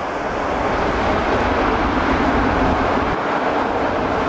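Twin-engine jet airliner's engines running at high power in reverse thrust as it slows on the runway after touchdown: a steady, loud rush that swells a little about a second in.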